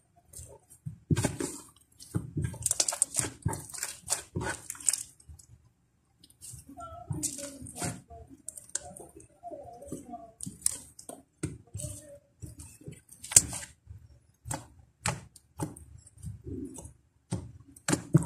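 Slime being kneaded and squeezed by hand as lotion is worked into it: irregular wet squishing with sharp clicking pops. Some squeaky sounds come in the middle.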